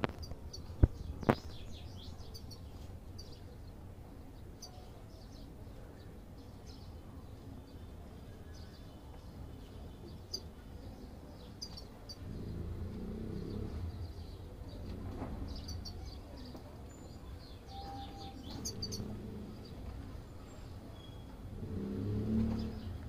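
Small aviary birds, European goldfinches, giving short, scattered high chirps. Two sharp clicks sound about a second in, and a low rumble comes and goes in the second half.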